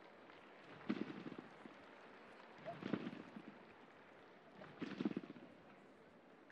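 Two side-by-side competition trampolines taking a synchronized pair's landings: each landing is a thump with a brief rattle of the beds and steel springs, three times about two seconds apart.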